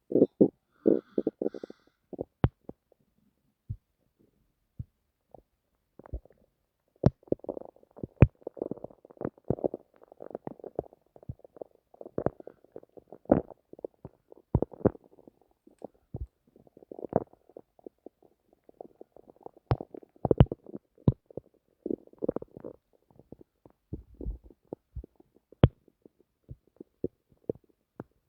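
Human stomach gurgling and rumbling: runs of bubbly gurgles and sharp little pops, coming in long spells broken by short pauses.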